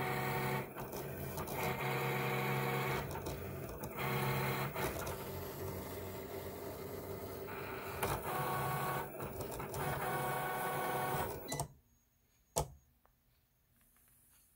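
Cricut Explore Air 2 cutting machine running a cut on cardstock: its motors whine in shifting steady pitches as the blade carriage moves back and forth and the rollers feed the mat. The motors stop abruptly near the end, and a single click follows.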